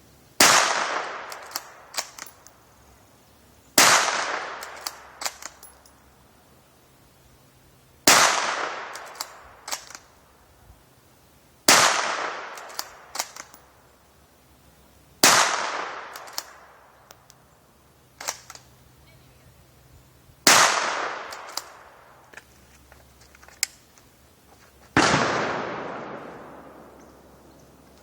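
Seven shots from a Ruger American Ranch .223 bolt-action rifle firing subsonic cast-bullet handloads (3.2 grains of Clays), spaced about four seconds apart, each ringing away in an echo. A few sharp clicks follow each shot as the bolt is cycled.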